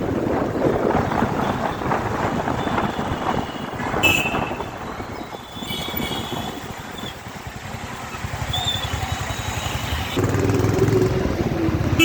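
Road traffic going by: motor vehicles such as motorbikes and cars pass with a rushing noise and a few short high tones. Near the end a vehicle engine passes close and louder.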